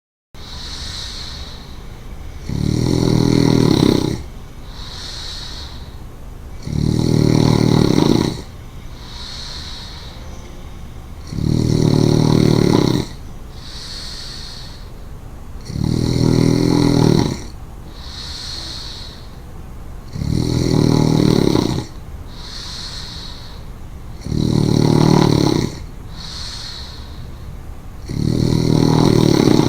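A woman snoring in her sleep: seven loud, low snores about every four seconds, each lasting about a second and a half, with a quieter breath between them.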